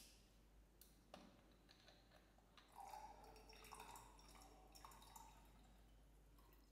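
Faint sound of juice being poured from a plastic bottle into a glass, a light splashing trickle from about three seconds in, after a click as the bottle's screw cap is twisted off at the start.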